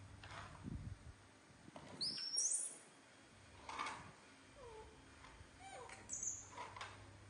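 Young macaques making short squeaks and calls, including a sharp high rising squeal about two seconds in and several brief falling calls later on. Plastic plates being set down on a tile floor give a few light knocks.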